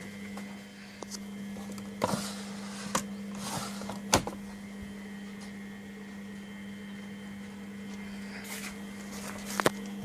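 Miele Professional WS5426 commercial washing machine running with a steady low hum. Several short clicks and knocks come a few seconds in and again near the end.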